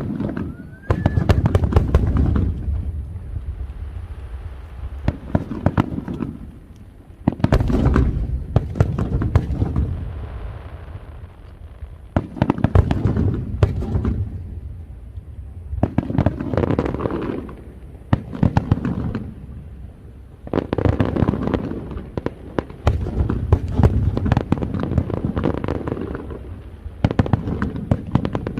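Fireworks display: waves of aerial shells bursting with dense crackling, a new volley every three to five seconds.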